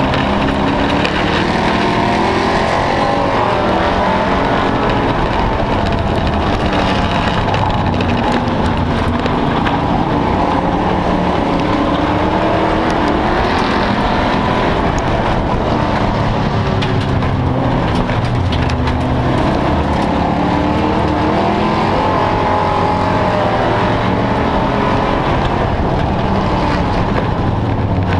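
Race car engine running hard on track, heard from inside the car, its pitch rising and falling with the throttle over a constant loud rush of wind and road noise.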